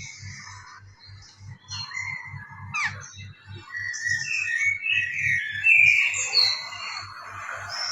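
Pet parrots chirping and whistling in short, varied calls, one quick downward-sweeping call about three seconds in, busier and louder in the second half, over background music with a steady low beat.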